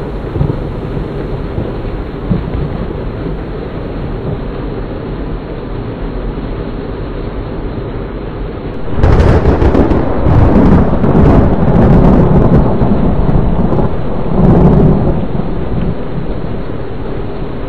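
Heavy rain pouring steadily. About halfway through, a loud thunderclap breaks in suddenly with crackling, rumbles for several seconds, then fades back under the rain.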